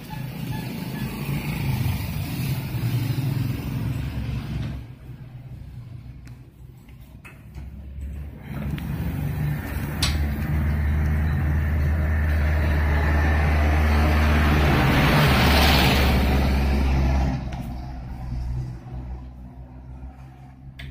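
Motor vehicle engine running. It eases off after a few seconds, then runs louder for about seven seconds with a rising rush of noise before falling away.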